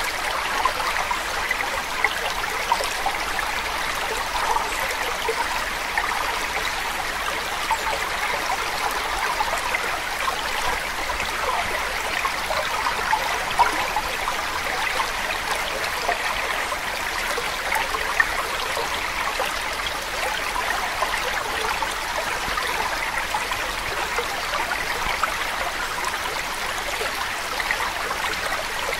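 Steady running water like a babbling stream, a continuous rushing with small trickling flickers and no breaks.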